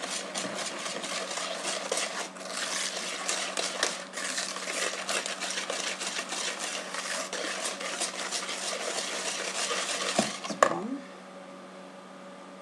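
Wire balloon whisk beaten fast by hand in a plastic mixing bowl, a rapid run of scraping, clicking strokes as an egg is beaten into creamed butter and sugar for a cake batter. The whisking stops about eleven seconds in with a single knock.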